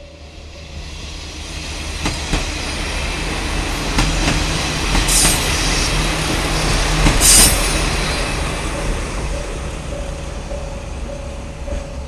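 KiHa 40-series diesel railcar running, its engine and wheel noise swelling to a peak and then easing off, with two short high-pitched hisses a couple of seconds apart near the middle. A level-crossing bell rings in an even beat, heard at the start and again in the second half.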